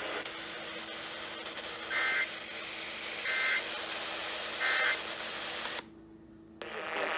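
Three short bursts of Emergency Alert System end-of-message data tones, a warbling two-tone screech about 1.3 seconds apart, over a steady radio hiss. The hiss drops out for under a second near the end.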